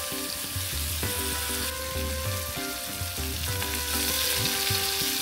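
Marinated barracuda steaks sizzling as they shallow-fry in hot coconut oil in a pan, the sizzle growing louder near the end as green chilies and curry leaves go into the oil. Soft background music runs underneath.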